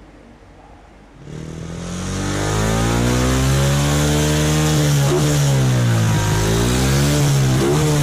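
Yamaha Exciter motorcycle's single-cylinder engine, fitted with a 28 mm BLK carburetor, starts up about a second in and runs with the revs rising and falling, as the air-fuel mixture is being adjusted.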